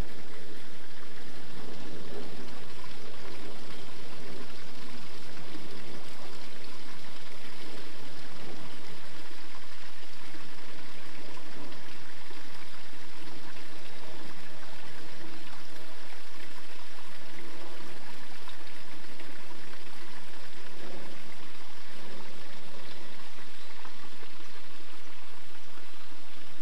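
Steady running water, a constant trickling flow.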